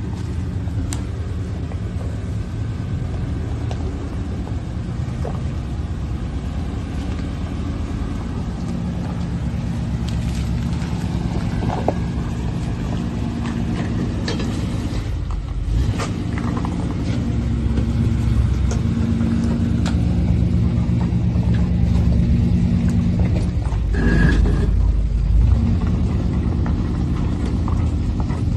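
Chevy C/K 1500 pickup engine running at low revs as the truck crawls over rock while towing a boat trailer, with occasional knocks and clicks from the truck and trailer on the rocks and a louder surge about three-quarters of the way through.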